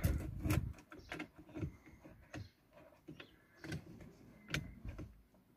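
Scattered light clicks and knocks, irregularly spaced, from hands working at a car's steering wheel and its plastic trim.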